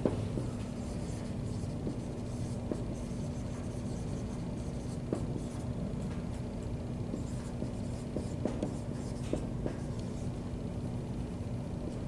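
Dry-erase marker writing on a whiteboard: faint scratchy strokes and a scattering of small taps as the letters are formed, over a steady low room hum.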